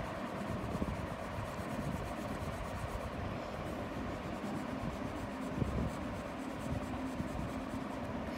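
Graphite pencil shading on drawing paper: quick, short back-and-forth strokes scratching over a steady background hiss.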